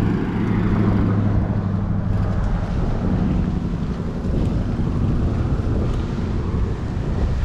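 A motor vehicle running, a steady low engine hum over rumble, the hum shifting up in pitch about midway.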